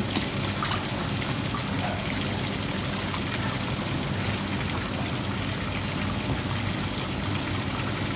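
Koi pond water trickling and splashing steadily, with a low steady hum underneath.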